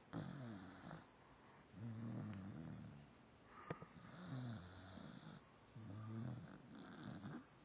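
Snoring: four slow snores about a second long each, with short pauses between, and a single sharp click midway.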